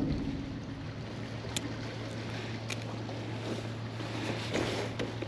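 Wind and water lapping around a kayak, with a steady low hum underneath and a few sharp clicks.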